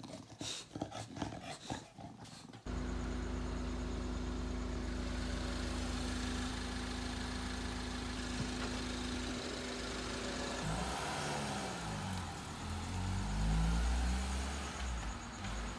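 A couple of seconds of bulldog puppy noises, then a car engine running steadily. From about eleven seconds in, a small black Mini Countryman drives past, its engine note sliding up and down and loudest near the end.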